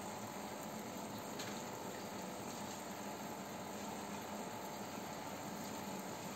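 Aquarium filter and aeration running: a steady bubbling, water-moving hiss with a low hum under it.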